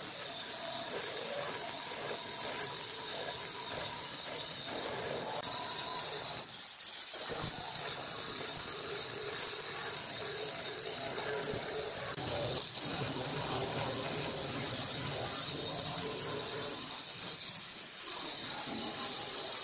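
Handheld diamond-blade stone cutter sawing through a granite countertop slab in a wet cut, a steady high-pitched cutting noise with a short drop about seven seconds in.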